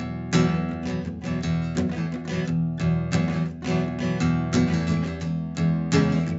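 Acoustic guitar music, strummed in a steady, busy rhythm.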